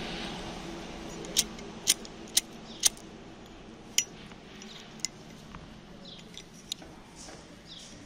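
Flint wheel of a cheap Zippo-style lighter struck with the thumb: four sharp scraping clicks about half a second apart, then a few more spaced out and fainter. The flint still throws sparks after the lighter was damaged by heat.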